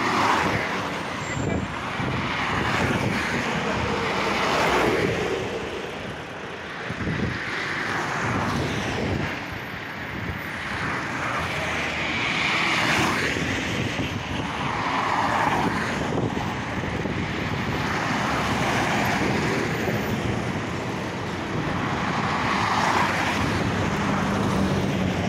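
Road traffic passing close by: engine and tyre noise of vehicles on the highway, swelling and fading several times as they go past.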